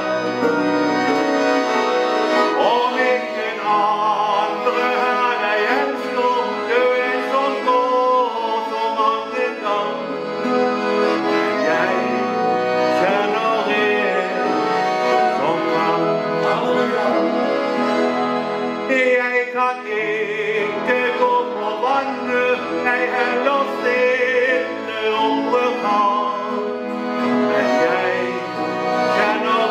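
Accordion playing a song with a man's voice singing along.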